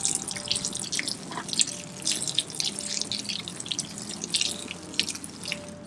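Water from a garden hose splashing and trickling onto potting soil in small seed pots, in irregular spatters over a steady hiss, soaking the soil.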